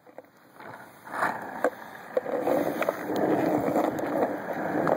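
Skateboard wheels rolling down an asphalt hill: a rough rolling rumble that starts about a second in and grows steady as the board picks up speed, with scattered clicks from the pavement.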